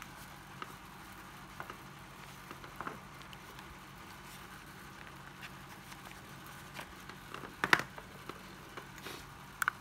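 Scattered clicks and taps from a 12V cordless mini chainsaw being handled, with the loudest clicks a little under 8 seconds in and near the end; its motor does not run. A faint steady low hum sits underneath.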